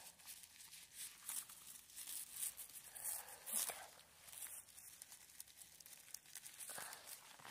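Irregular rustling and crinkling as a hand in a thin plastic glove rummages through dry grass and pine needles on the forest floor.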